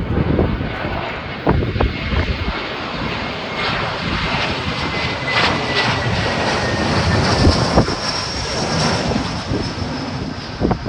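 Airbus A321-231 airliner's IAE V2500 turbofans on approach to land, a steady jet rush with a thin whine that falls slightly in pitch as it passes. Strong wind buffets the microphone with low gusty thumps.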